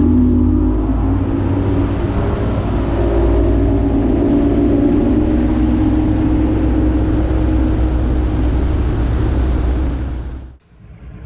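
Bass boat's outboard motor running steadily at cruising speed, a low drone under a steady rushing hiss; it drops away near the end.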